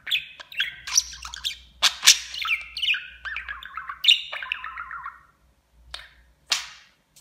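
A budgerigar chattering in a fast run of high chirps and warbled notes for about five seconds. After a short pause, one sharp chirp comes near the end.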